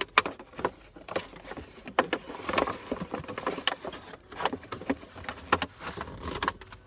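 Shopping bags being rummaged through and handled: rustling and crinkling with many short clicks and knocks.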